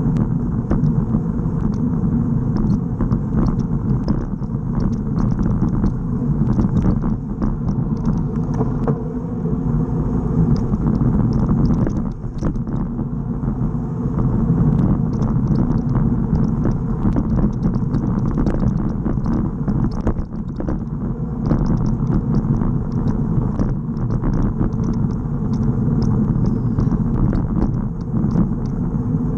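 Steady low rumble of wind buffeting and tyre noise picked up by a camera mounted on a moving road bicycle rolling over cracked asphalt, with frequent small ticks from the bumps.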